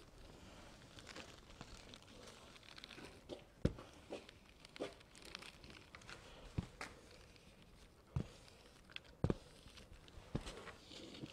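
Small covering iron sliding over laminating film on an EPP foam wing: soft rustling and crinkling of the film as it is ironed down, with several short sharp knocks spread through.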